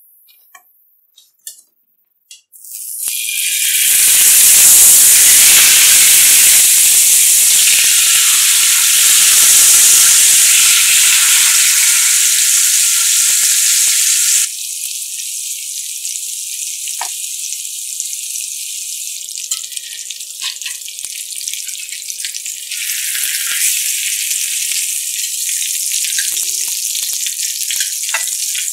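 Salmon fillets frying in hot oil in a pan, a loud steady sizzle that starts about three seconds in after a few light clicks. About halfway through it drops to a quieter, crackling sizzle.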